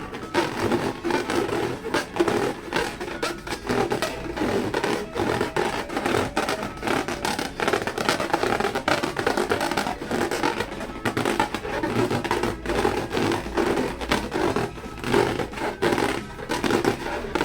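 Rubber balloons being squeezed and rubbed by hand, a dense, continuous run of squeaks and crackling clicks.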